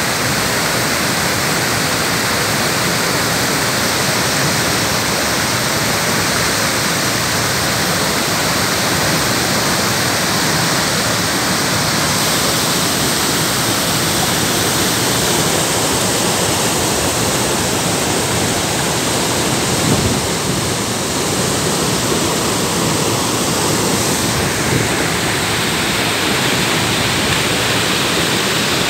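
Waterfall cascading down stepped rock: a loud, steady rush of falling and splashing water, with one brief low bump about two-thirds of the way through.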